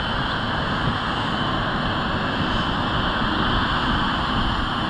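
Boeing 777-300ER's twin GE90-115B turbofan engines running while the airliner rolls along the runway: a steady, loud jet rumble with a faint high, even whine on top.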